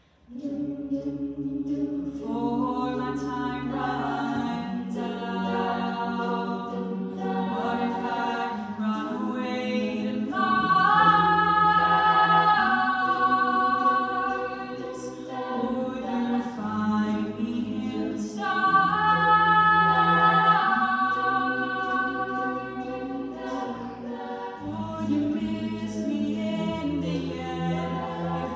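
Mixed-voice a cappella group singing in close harmony, with sustained chords over a low sung bass line. The voices swell louder twice, about a third of the way in and again past the middle.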